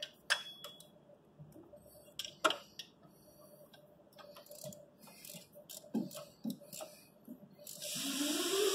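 Hand tools clicking and clinking on metal as the alternator bolts are worked, with a ratchet-like ticking and a few sharper knocks. Near the end a louder noise with a hiss and a wavering, rising whine starts.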